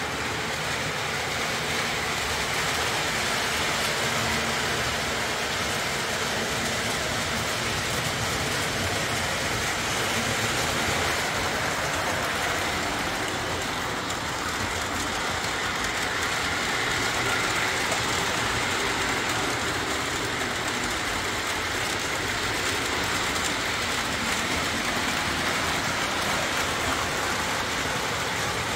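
Lionel O-27 Alco diesel model train running on three-rail track: a steady whir and rumble of the motor and wheels that swells and fades a little as it circles.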